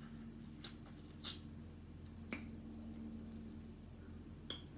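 Eating seafood: a few soft, wet clicks and smacks, about four, spaced out over a faint steady hum.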